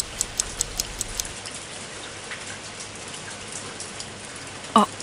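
Steady rain, with a quick, even run of sharp ticks, about five a second, that stops about a second in. A brief voice sound comes just before the end.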